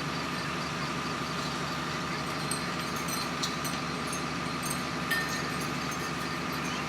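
Steady engine drone with a constant hum and a few faint clicks.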